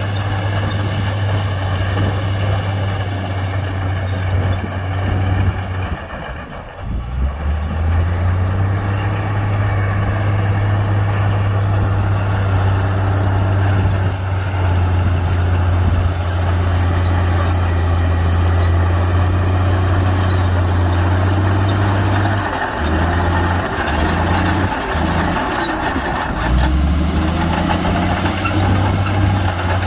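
Heavy diesel engine of earthmoving machinery running steadily under load with a deep, even low note. It dips briefly about six seconds in and falters a few times about twenty-three seconds in before steadying.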